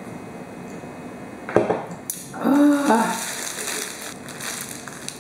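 A drink can set down on a table with one sharp knock, then a paper burger wrapper crinkling and rustling as the burger is picked up, with a short hummed "mm" just after the knock.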